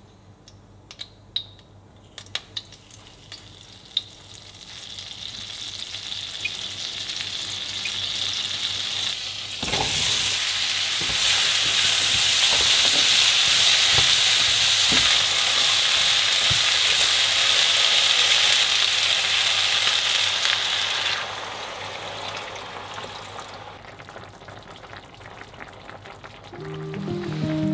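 Food sizzling in hot oil in a pan, with a few light utensil clicks at first. The sizzle builds, jumps sharply louder about ten seconds in, stays loud, then drops off about twenty-one seconds in and fades.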